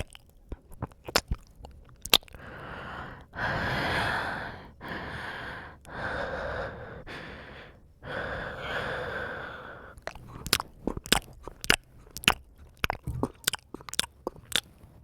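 ASMR mouth sounds made close to the microphone: quick wet clicks and smacks of the tongue and lips, with a run of long breathy sounds, a second or two each, in the middle before the clicking starts again.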